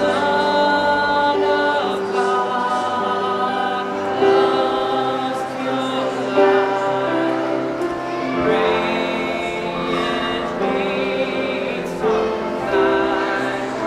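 A group of voices singing a holiday song together over backing music, with long held notes.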